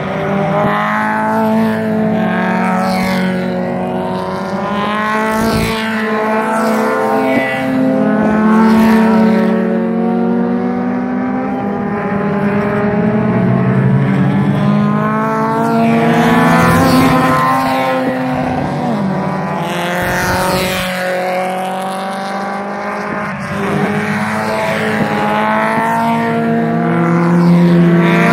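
Several Birkin Seven sports car engines running hard around the circuit, their pitch climbing through each gear and dropping at every shift, with more than one car heard at once. Near the end the pack comes close and the engines grow louder.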